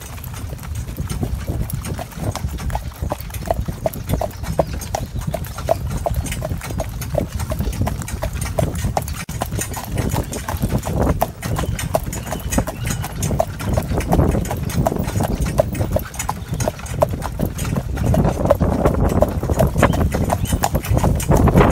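Hooves of a Gelderlander horse in harness clip-clopping steadily as it pulls a carriage, over a steady low rumble.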